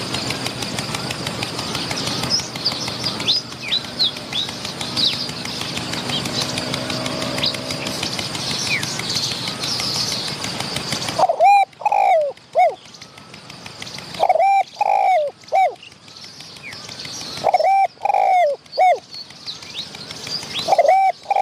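Spotted dove cooing: three phrases of several low coos each, about three seconds apart, with a fourth starting near the end. Before them, about halfway, a steady hum with high small-bird twitters stops suddenly.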